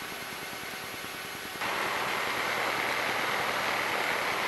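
Cessna 152's engine idling on the ground, heard as a steady hiss through the cockpit headset intercom, which grows louder about one and a half seconds in.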